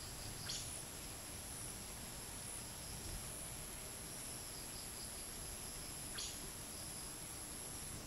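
Insect chorus of crickets and cicadas: a steady high-pitched ring with a pulsing high trill repeating about once a second, over a low hiss of light wind. Two short, sharp chirps stand out, one just after the start and one about six seconds in.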